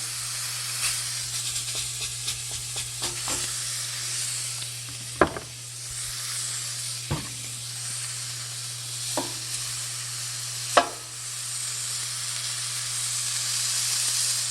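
Skillet sizzling with a steady hiss after the burner has been turned off, the pan still hot. A few sharp clicks stand out over the sizzle.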